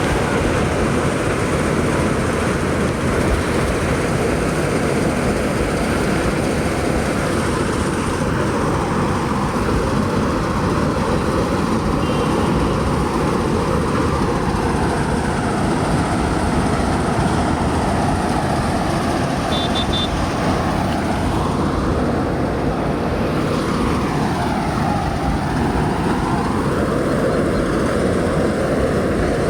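Hira 985 self-propelled combine harvester running, a steady, loud heavy engine and machinery noise.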